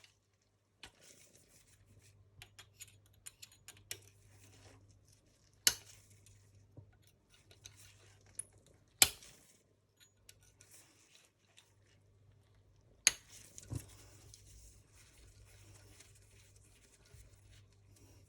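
Hand tools and small metal parts of a model nitro engine being handled while the back plate is unscrewed: light scattered clicks and taps, with three sharp, louder knocks spread through.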